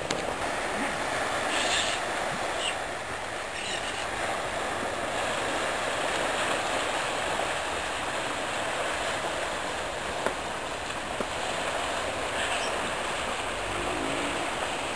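Steady wash of small waves breaking on a sandy beach.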